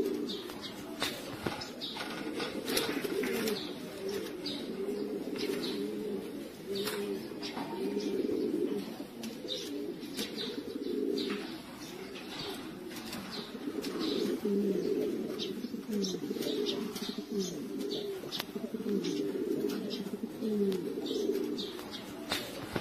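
Domestic pigeons cooing continuously, many coos overlapping, with scattered short clicks.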